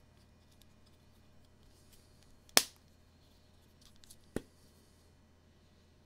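Two sharp clicks, the first about two and a half seconds in and much the louder, the second nearly two seconds later, amid faint light handling rustle.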